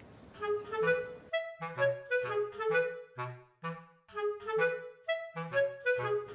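Background music: a bouncy tune of short clarinet-like woodwind notes over a steady low bass pattern.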